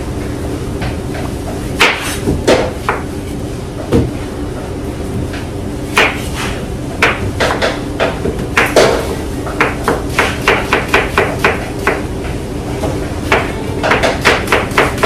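Sharp knocks of a utensil striking a hard surface during kitchen prep work. They come scattered at first, then in quick runs of about three or four a second, over a steady low hum.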